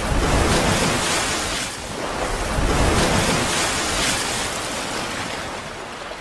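Intro sound effect: a steady rushing noise that swells twice, then eases off toward the end.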